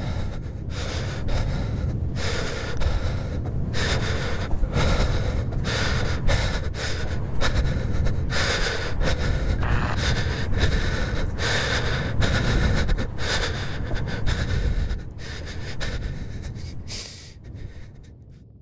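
Heavy, ragged breathing and gasps, roughly one or two a second, over a steady low rumble, fading out near the end.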